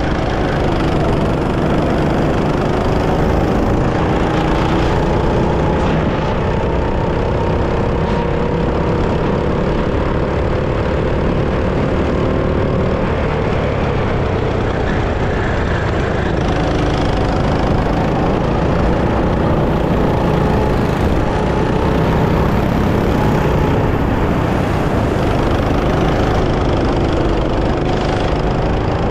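Go-kart engine running under load, its pitch climbing slowly for about thirteen seconds, dropping, then climbing again near the end as the kart speeds up and slows through the track.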